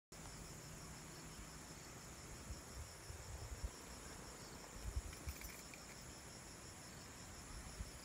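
Steady, high-pitched chorus of insects in the forest, with a fast pulsing beat. A few low thumps come through around the middle.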